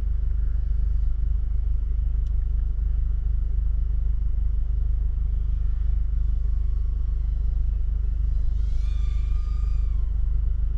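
Steady low rumble, with a short steady high tone and its overtones about nine seconds in.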